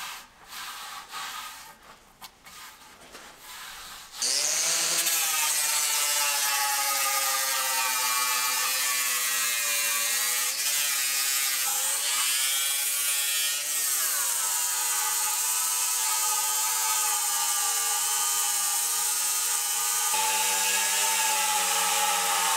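Angle grinder with a flap sanding disc grinding the outside of a large wooden turning blank on the lathe, starting about four seconds in after quieter rubbing of a hand over the wood. It runs with a steady whine and a hiss of abrasive on wood, its pitch sagging and recovering a few times as the disc is pressed in for a coarse cut.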